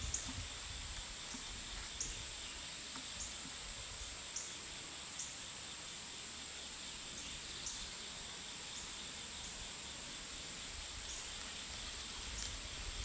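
Steady high-pitched drone of insects in summer woodland, with short, high, falling chip notes scattered through it about once a second.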